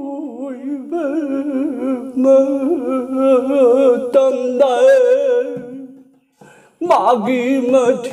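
An old man singing unaccompanied in the Manipuri Nata Sankirtan style. He holds long, wavering, ornamented notes, breaks off briefly about six seconds in, then starts again.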